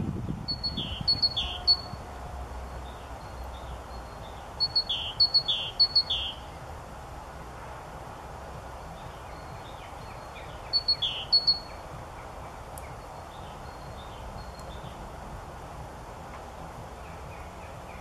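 Short high bird chirps, each dropping in pitch, in three groups of two to four: at the start, about five seconds in and about eleven seconds in, over a steady outdoor hiss. Soft low knocks in the first second, as a woodpecker chips at its nest hole in the tree trunk.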